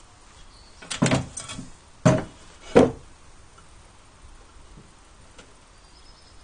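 Ceramic toilet-tank lid being handled and turned over on a wooden table: a quick cluster of knocks about a second in, then two louder single knocks around two and three seconds in as it is set down.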